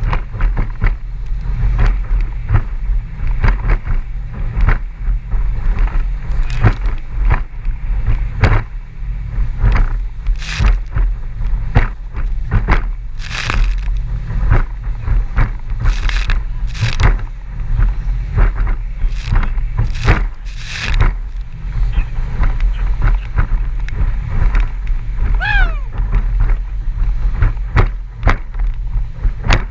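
Small outboard-powered boat running fast across wind-blown chop: a steady low motor and hull drone, with the hull slamming on the waves in irregular hard knocks and splashes.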